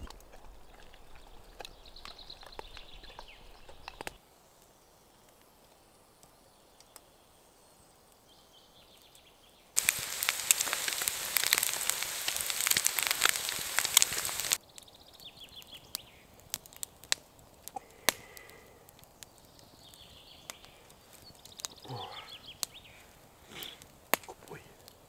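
Wood fire crackling in a perforated metal camp stove for the first few seconds, then after a lull a pan of eggs and square slices of meat frying: a loud, steady sizzle for about five seconds that cuts off suddenly. Afterwards come faint scattered crackles and clicks.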